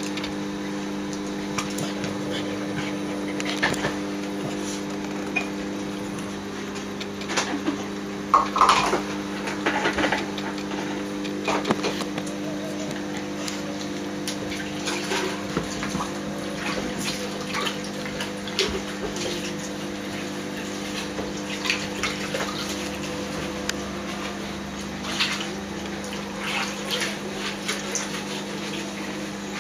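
A steady low mechanical hum with a few tones, with scattered short clicks and scuffles of small dogs moving about on a tiled floor.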